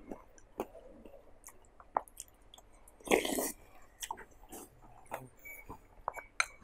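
A person eating mohinga, Burmese fish noodle soup with fried fritters, from a spoon: chewing and small mouth clicks, with one louder, noisy sound about three seconds in as a spoonful is taken.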